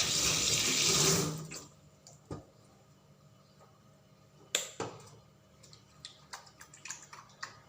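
Tap water running into a sink, shut off about a second in, followed by a few knocks and a run of light clicks.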